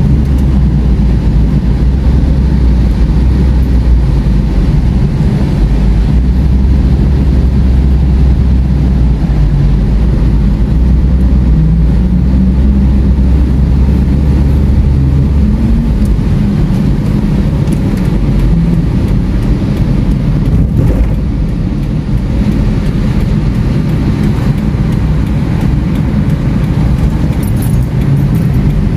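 Car cabin noise while driving on a rain-wet road: a steady, loud low rumble of engine and tyres, with the engine note rising a little around the middle.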